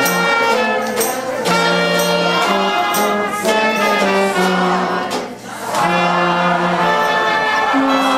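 Small Dixieland-style jazz band playing live: trumpet and clarinet over a tuba's bass notes, with a banjo strumming. The music dips briefly a little past five seconds in.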